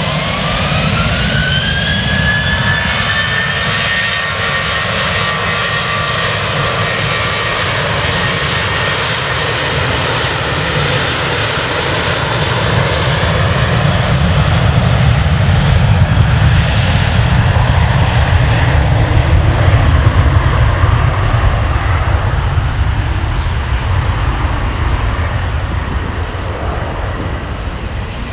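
Jet airliner engines spooling up with a rising whine that then holds steady, under a loud roar and deep rumble that swells to its loudest about halfway through and eases off near the end.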